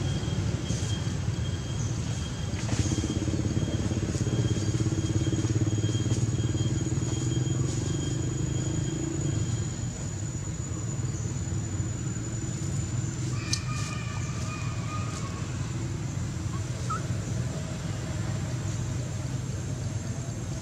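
Low, steady engine rumble of a motor vehicle, louder for several seconds near the start and easing off about halfway through, with a thin steady high-pitched whine above it.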